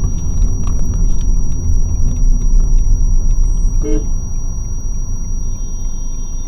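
Car engine and road rumble heard from inside the cabin as the car drives slowly, with a short horn toot about four seconds in.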